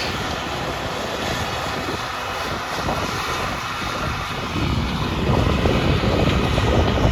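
Steady engine and machinery noise of farm equipment running during soybean harvest, with an uneven low rumble that grows stronger about four and a half seconds in.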